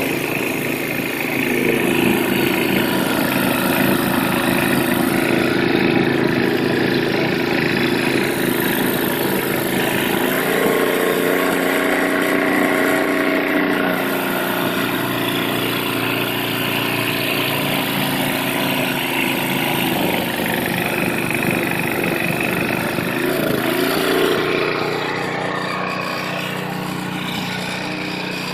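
Two-stage snowblower's 5 hp Tecumseh engine running steadily, its pitch shifting about ten seconds in and again near the end, when it eases off a little.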